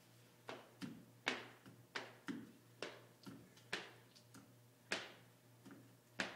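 Squeegee strokes across safety window film on glass, a short swish about twice a second as the film is pressed down.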